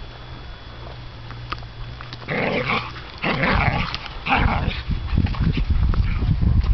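Whippets play-fighting, growling in three short rough bouts about two, three and four seconds in. A dense low rumble runs underneath from about four seconds on.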